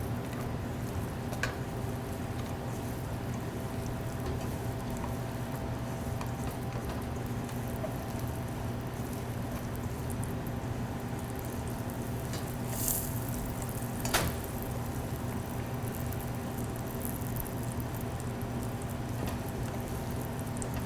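Butter and canola oil melting in a pan over high heat, a faint, even sizzle over a steady hum. There are a couple of light clicks, about a second and a half in and again near the middle, with a short hiss just before the second.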